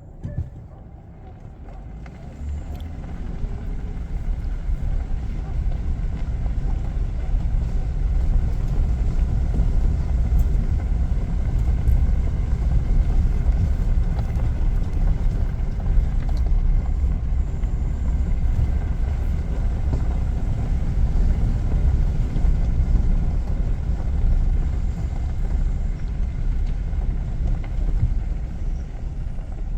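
A motor vehicle driving, a steady low road-and-engine rumble that builds over the first several seconds as it gets under way.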